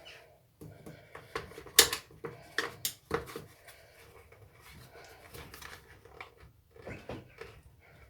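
Scattered light clicks and knocks of hand tools and small metal parts being handled while the strimmer's spark plug is taken out for checking, the sharpest knock about two seconds in.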